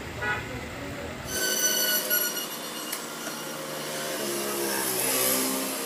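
A car engine running close by, then, after a cut, a steady high-pitched mechanical whine with a lower hum that slides down in pitch a few seconds later.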